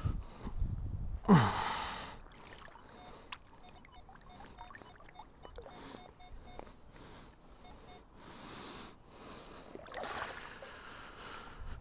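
Water sloshing and trickling as a target is dug out of the shallow bottom, with a short breathy grunt about a second in. Faint repeated metal-detector beeps sound through the middle, and a louder splash comes near the end.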